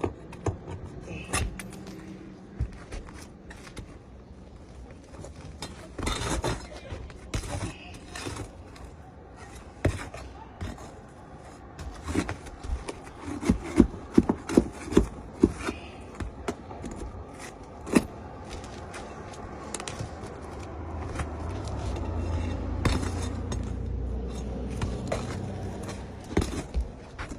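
Scraping and sharp knocking from work on roof shingles as they are lifted gently, with a quick run of about a dozen taps midway.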